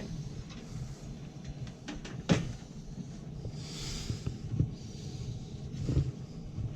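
A few sharp knocks, the loudest a little over two seconds in, over a steady low hum, with a brief hiss about four seconds in.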